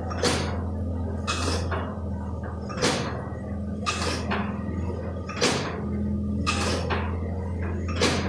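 Allis-Chalmers Corliss stationary steam engine running slowly: a sharp chuff of steam exhaust about every 1.3 seconds, seven in all, with lighter clicks from the valve gear between, over a steady low hum.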